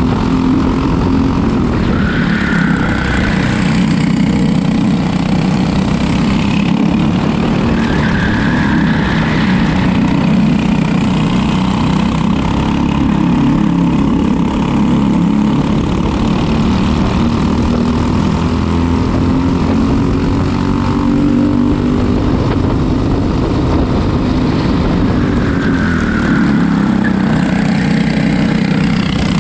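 Racing kart engine running hard under load, its pitch climbing slowly and dropping back several times as it accelerates and slows.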